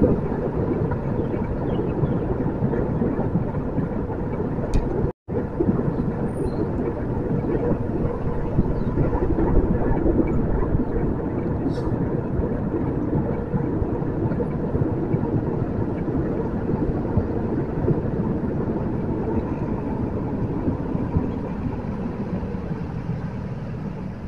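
Steady wind rushing over the camera microphone of a moving bicycle, mixed with tyre and road noise. It cuts out for an instant about five seconds in and eases near the end as the bike slows for a red light.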